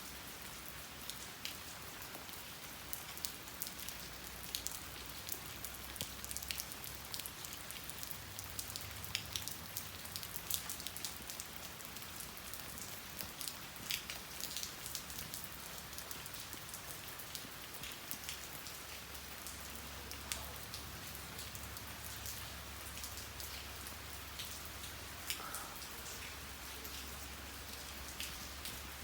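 Steady rain falling, with many sharp drops striking close by, most thickly in the first half, over a faint low hum.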